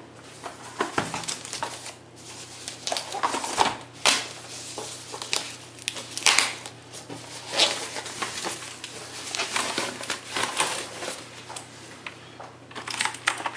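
Packaging being handled and moved by hand: irregular rustling, crinkling and light knocks of cardboard and plastic, with a faint steady low hum underneath.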